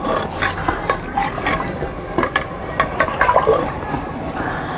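Steel ladle stirring a thin, watery black-chickpea curry in an aluminium pressure cooker: liquid sloshing, with irregular clinks of the ladle against the pot.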